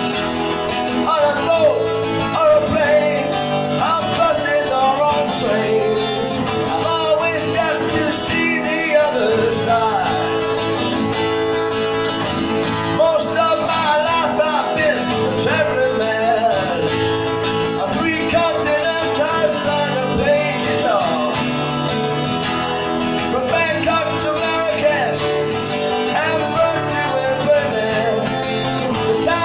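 A man singing while playing an acoustic guitar.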